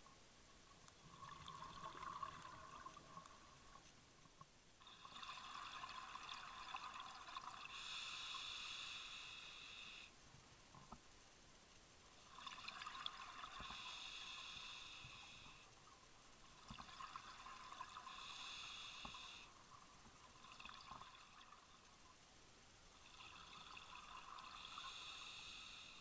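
Scuba diver breathing through a regulator underwater: slow breaths, with four long rushes of exhaled bubbles, each lasting two to three seconds, about every five or six seconds, and a softer hiss of inhalation between them.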